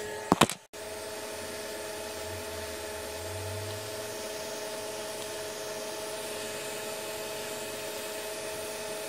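Hot-air rework heat gun blowing steadily over the TV main board's chip to reflow it, a fan hiss with a steady hum of two tones. A couple of sharp clicks and a brief break come about half a second in.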